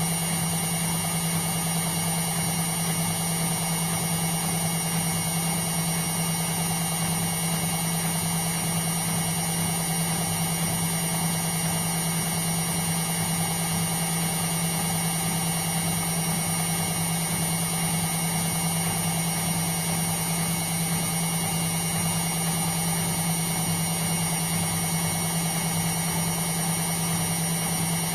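Indesit washing machine running steadily, a constant motor hum with one strong low tone and no pauses or changes in speed.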